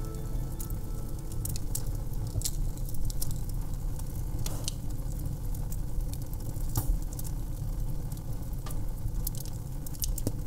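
Wood fire burning: crackling, with irregular sharp pops over a low rumble of the flames.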